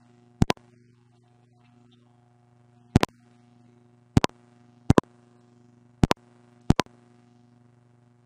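A steady low hum, with sharp double clicks at uneven intervals, six in all, and no voice heard.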